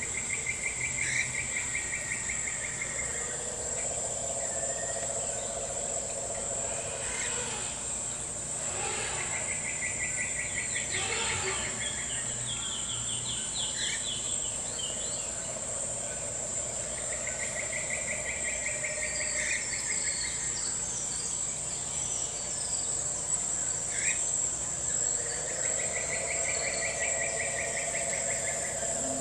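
A nature ambience of insects trilling steadily and high, with a longer pulsed rattling call that comes back about every eight seconds and a few short bird-like chirps in the middle.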